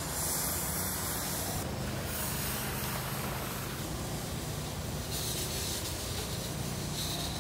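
Steady hissing noise over a low hum, with no voices; the hiss turns brighter and sharper for the first second or two and again for the last two seconds.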